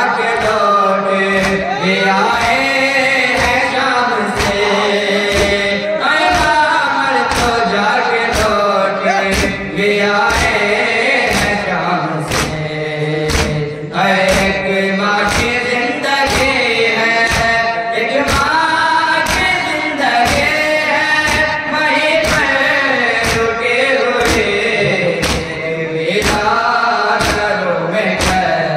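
Voices chanting a nauha, a Shia lament, in unison. They are kept in time by steady rhythmic beats of matam, mourners striking their chests, a little more than one beat a second.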